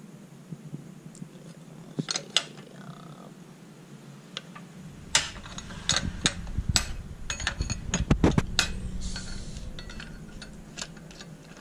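Metal clinks and knocks of a seal-installing tool being turned and shifted on a Vespa's aluminium crankcase while the crankshaft oil seal is drawn in flush. Scattered sharp clinks, a low rumble from about halfway, and a close run of knocks around eight seconds in.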